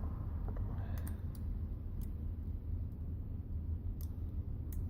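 A few faint, sharp clicks of small plastic and metal phone parts being handled and pried during a smartphone teardown, over a steady low hum.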